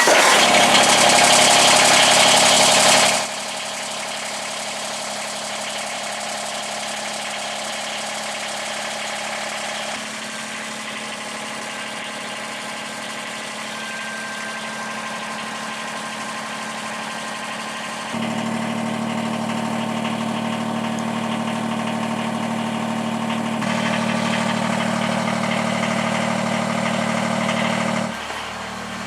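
Kubota BX compact tractor's three-cylinder diesel engine running just after a cold start, warming up before an oil change. It runs louder for the first three seconds, then settles to a steady idle whose sound shifts abruptly a few times.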